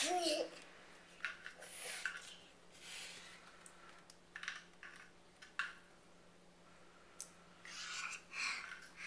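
A toddler laughing and huffing breathily in short bursts, with a brief high squeal at the start.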